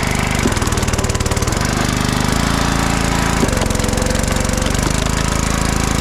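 Two-stroke chainsaw engine running, its speed dropping and rising several times as the throttle is worked.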